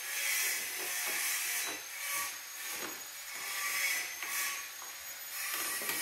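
Irregular rubbing and scraping noises, with a few light clicks, as hands handle and work on a white plastic-bodied embroidery machine.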